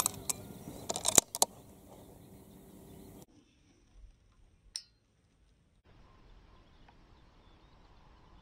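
A few sharp clicks and knocks in the first second and a half, from a bolt-action rifle being handled and readied by a prone shooter, then one faint click near the middle over quiet outdoor background.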